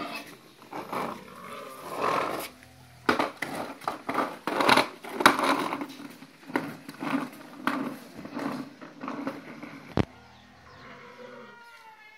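Hard plastic wheels of a child's swing car rolling and rattling over a tiled courtyard in uneven bursts as the toddler wiggles the steering wheel, with one sharp knock about ten seconds in.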